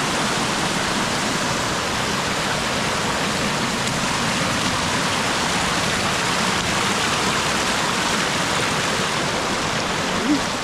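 Waterfall's rushing water, a steady, unbroken hiss.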